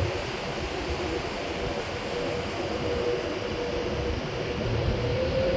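Avanti West Coast Class 390 Pendolino electric train moving along the platform and away, a steady running rumble of wheels and motors. A faint whine runs through it and rises slightly in pitch near the end.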